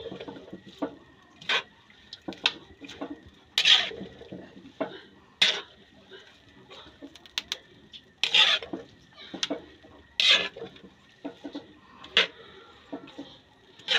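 A metal utensil scraping and clanking against a large wok as chayote shoots are stirred and tossed. The scrapes and knocks come irregularly, with the loudest about every two seconds.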